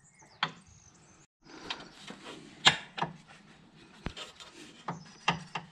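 Hands and tools working on fittings in a car's engine bay: a handful of sharp clicks and knocks, the loudest a little under three seconds in, over rubbing and rustling of hoses and parts.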